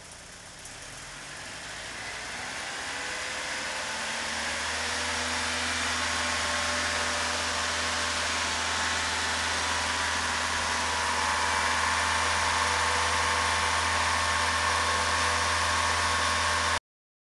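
Opel Omega's freshly rebuilt fuel-injected engine running. It speeds up gradually over the first few seconds, then runs steadily at the higher speed. The sound cuts out briefly near the end.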